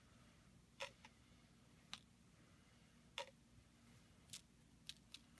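Near silence with a low room hum and about six faint, sharp ticks, roughly a second apart at first and closer together near the end.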